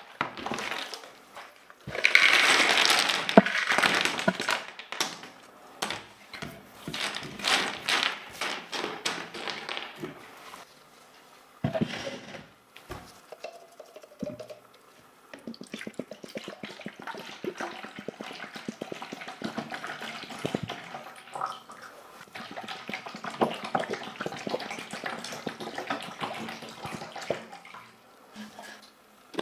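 Keyboard parts being washed: water running and splashing with scrubbing. It is loudest for a few seconds near the start, then settles into quieter, steady scrubbing.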